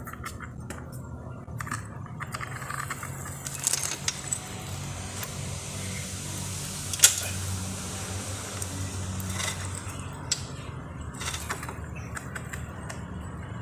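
Motorcycle 428 roller drive chain being handled and fed onto the sprockets: scattered metallic clinks and rattles of the links, with one sharp click about seven seconds in. A steady low hum runs underneath.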